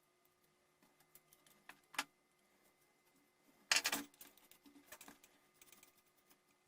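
Faint clicks and taps of small parts being handled while the Dremel 3000 rotary tool is put back together, with a sharp click about two seconds in and a louder cluster of clicks about four seconds in.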